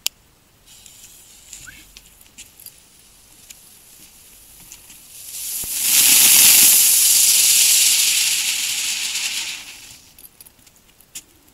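Lesli ground spinner firework: a faint sputtering fuse with scattered crackles, then the spinner ignites with a loud hiss of sparks. The hiss swells in about five seconds in, holds for about four seconds and fades out.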